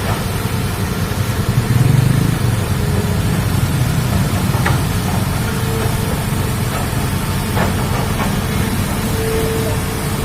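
Excavator's diesel engine running steadily with a low rumble, with a faint whine coming and going in the second half.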